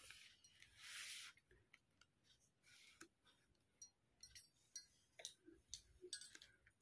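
Faint, irregular clicks of a Casio fx-991MS scientific calculator's keys being pressed, a few taps in the last three seconds. About a second in there is a short soft rustle as the calculator is set down on the paper.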